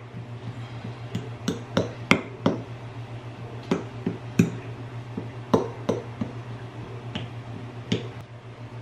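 A metal fork docking an unbaked pie crust: the tines prick through the pastry dough and tap the metal pie pan beneath, in irregular sharp clicks about one or two a second.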